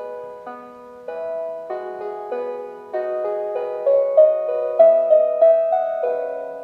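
Piano music: a melody over chords, the struck notes changing about every half second and fading between strikes.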